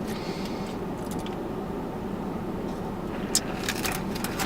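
Eating sounds: a few short, crisp bites and crunches of food about three seconds in, over a steady low rumble of a car's interior.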